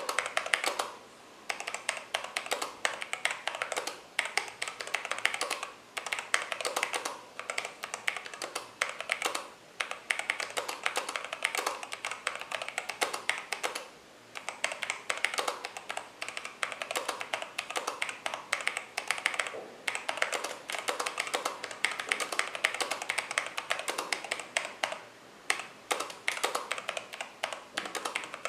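Mechanical keyboard with Halo True tactile switches being typed on: a fast, continuous run of keystrokes broken by short pauses every few seconds.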